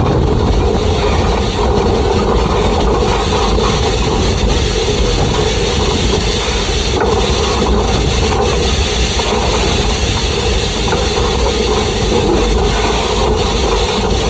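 Peckett industrial steam locomotive running along the track, heard from its coal bunker: a steady mix of wheel-on-rail noise and steam hiss.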